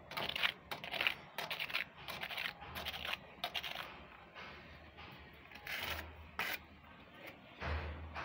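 Rough scraping strokes on a textured painted wall, about two a second, thinning out after about four seconds; a low hum comes in briefly twice near the end.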